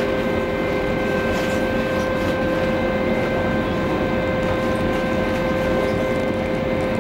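The cruise ferry Silja Symphony's engines and machinery give off a steady drone as she gets under way: an unchanging hum with several steady tones over a low rumble.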